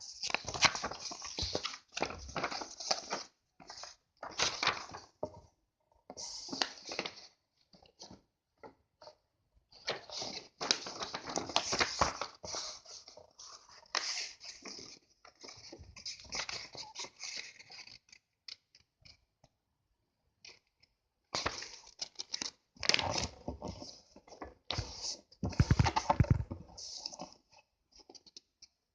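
A sheet of A4 paper being handled and folded: irregular rustling and crinkling, with short pauses between the handling.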